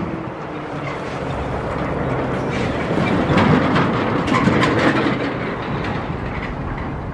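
EMD diesel locomotive engine running as it pulls a freight train slowly, with the wheels clicking and knocking over the track; the clatter is loudest about halfway through.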